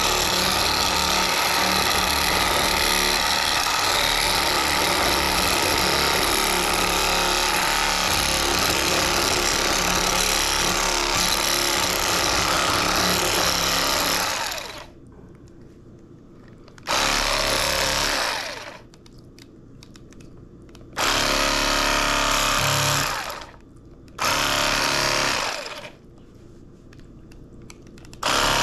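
KastKing Speed Demon electric fillet knife running, its motor and reciprocating blades buzzing as it cuts into a catfish. It runs steadily for about fourteen seconds, stops, then is triggered in three short runs of about two seconds each and starts again near the end.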